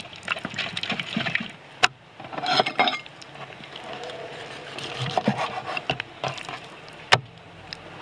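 A wooden spoon stirring and scraping sauce in a metal bowl, with a sharp tap about two seconds in. Then a knife slicing raw chicken breast on a wooden cutting board: clicks of the blade against the board and one sharp knock near the end.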